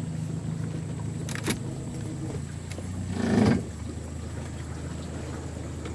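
A small motorboat's engine running steadily at low speed, a constant low hum, with a brief louder rush about three seconds in.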